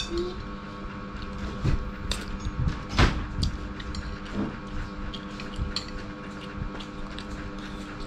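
Spoon and fork clinking and scraping in a bowl of soup, with one louder knock about three seconds in, over a steady hum.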